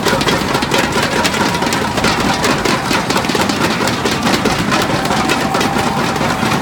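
A crowd of spectators banging pairs of inflatable thunder sticks together in a rapid, continuous clatter, over loud crowd noise.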